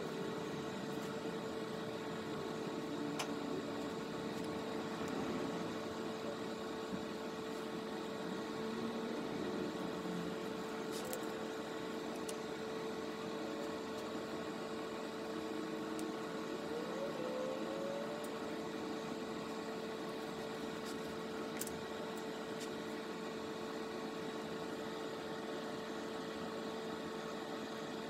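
Steady room hum with a constant mid-pitched tone and a faint hiss, with a few faint clicks.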